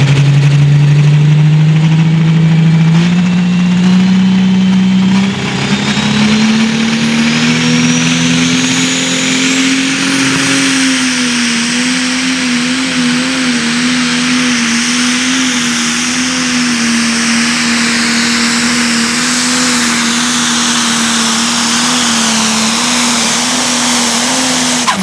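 Cummins 8.4-litre straight-six diesel of a Landini Pro Stock pulling tractor at full throttle, pulling the sled. Its note climbs in steps over the first ten seconds, then holds high and steady. Over the same stretch the whine of its big Holset HX82 turbocharger rises steadily in pitch.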